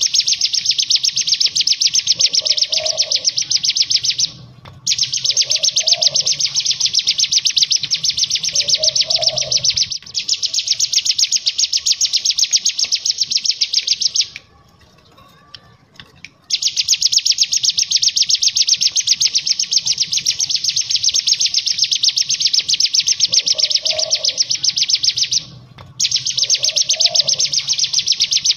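A caged ciblek gunung, a mountain prinia, sings in long rapid-fire trills of fast repeated high notes, the 'ngebren' style. The trills come in stretches of several seconds with brief breaks between them and one longer pause about halfway.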